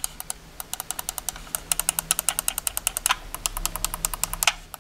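Side thumb buttons of a HyperX Pulsefire Raid gaming mouse being pressed, giving several crisp clicks, the two sharpest about three seconds in and near the end. A fast, steady ticking runs underneath.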